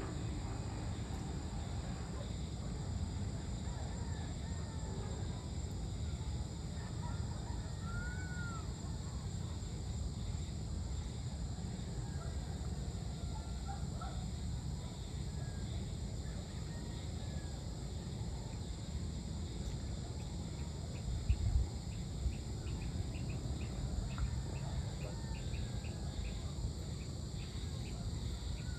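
Outdoor dusk ambience: a steady low background rumble with scattered faint bird chirps. From about two-thirds of the way in, an insect such as a cricket chirps in a rapid run of high ticks. There is one brief low thump about three-quarters of the way in.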